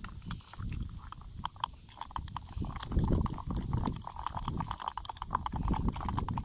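A metal rod stirring a thick wet red fishing-bait paste in a cut-off plastic jug: irregular squelching with many sharp clicks as the rod knocks the plastic, over a low rumble.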